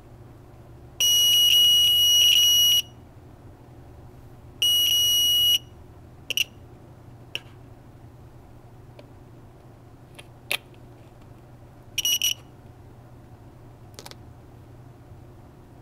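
Buzzer of a homemade Operation game sounding a steady high-pitched beep each time the metal tweezers touch the aluminium-foil edge and close its 9-volt series circuit. It buzzes first for about two seconds, then for about a second, then in a few short blips mixed with light clicks.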